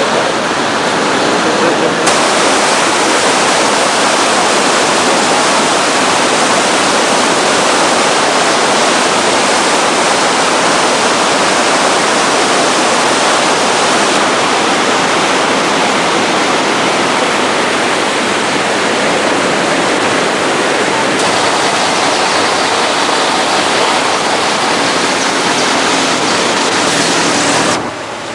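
Rushing floodwater: a loud, steady wash of water noise, changing abruptly a few times where the footage is cut.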